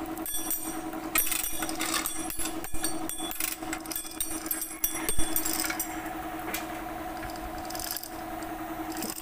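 Irregular metal clinks and rattling from a chain hoist's chain and the steel transmission case being guided into place, thick for the first five seconds and then sparser, over a steady mechanical hum.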